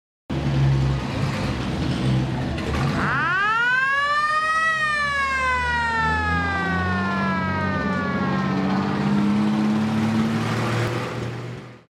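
A fire engine's mechanical siren winding up to a peak about three seconds in and then slowly winding down, over the truck's engine running.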